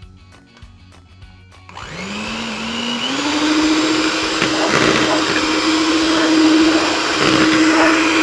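Britânia electric mixer switching on about two seconds in, its motor whine rising as it speeds up and then running steadily as the beaters whip egg yolks, sugar and oil until pale.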